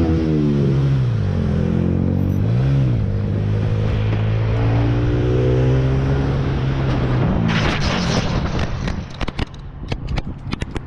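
Motorcycle engine from an onboard camera, revs falling at the start, a short blip up and down about three seconds in, then running steadily. About seven and a half seconds in it gives way to a loud rush of noise and a quick run of sharp knocks and scrapes as the motorcycle crashes.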